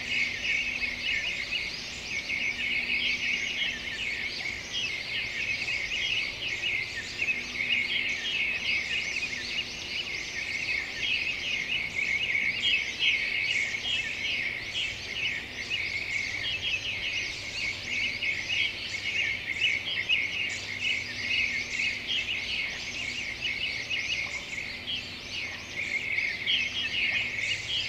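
A dense chorus of small birds chirping and twittering without a break.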